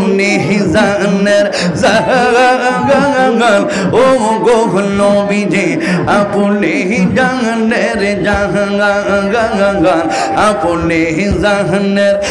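Male voice singing a devotional zikir chant, the melody wavering with vibrato over a steady, held low tone.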